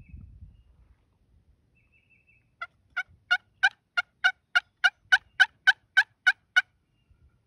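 Turkey yelping: a run of about fourteen evenly spaced yelps, about three a second, starting a few seconds in and lasting about four seconds. A low rumble comes at the start.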